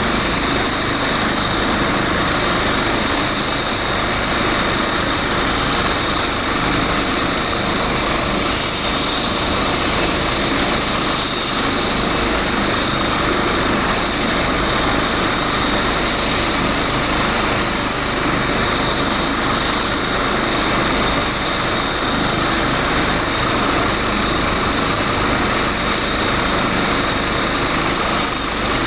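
Eurocopter EC135 twin-engine helicopter running steadily, with an even high turbine whine over the broad rush of the engines and rotor.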